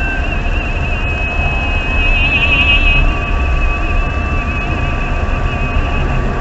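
Steady low rumble of a vehicle travelling along a road, with a thin high whine above it that wavers briefly about two seconds in.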